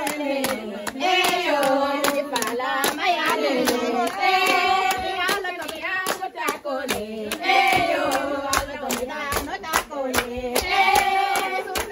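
A group of women chanting a traditional Fulani wedding song celebrating the bride, to a steady rhythm of hand claps.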